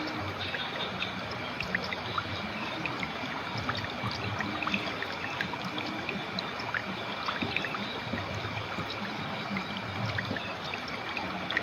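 River water flowing and trickling steadily, with many small splashes.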